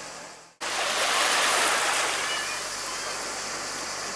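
Sea water washing gently at the shoreline, a steady wash of small waves. The sound fades out and cuts back in about half a second in.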